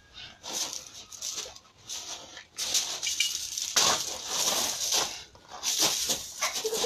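Feet scuffing, stamping and crunching on loose gravel in an irregular run of bursts during a scuffle, busiest in the second half.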